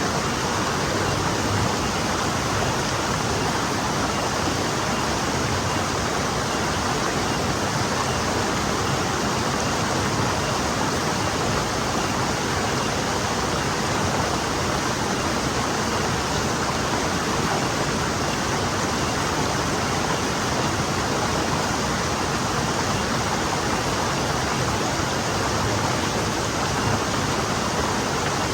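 Forest stream flowing over rocks: a steady, even rush of water with no change.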